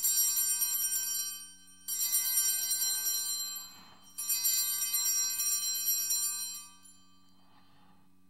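Altar bells rung three times as the consecrated host is elevated, each ring a bright jingling cluster that fades away before the next; the third ring lasts longest.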